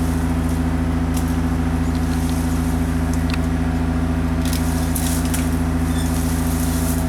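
A tree-trimming boom truck's engine running steadily with an even hum, driving the hydraulics for the boom's hydraulic chainsaw. A few brief hissing noises come in around the middle.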